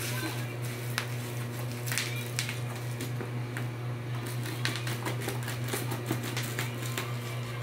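Plastic bubble-wrap packaging crinkling and crackling in irregular sharp clicks as the tripod bag is pulled out of its cardboard box, over a steady low hum.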